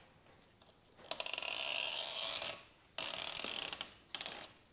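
Red backing liner being peeled off the 3M double-sided tape under a carbon fiber lip spoiler, a rapid run of tiny clicks as the adhesive lets go. It comes in two pulls: the first about a second and a half long, the second shorter, after a brief pause.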